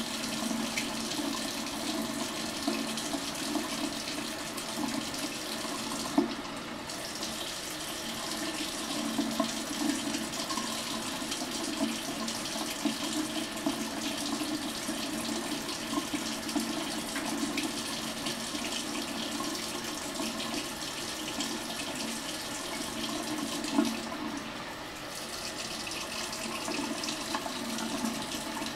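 Bathroom faucet running steadily, its thin stream splashing into the sink basin and around cupped hands.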